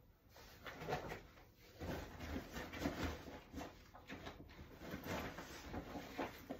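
Faint, irregular handling noises: soft rustling and a few light knocks in a small room.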